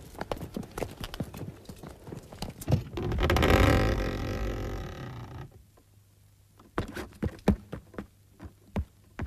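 Hooves clopping and feet tramping on hard ground, then a loud rushing swell lasting about two and a half seconds, then quiet broken by a few sharp knocks.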